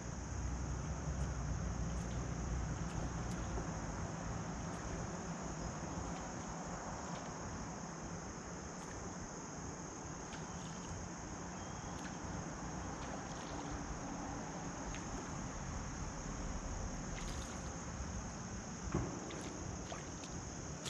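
Steady high-pitched insect chorus, a constant shrill drone, over a low outdoor rumble with a few faint clicks.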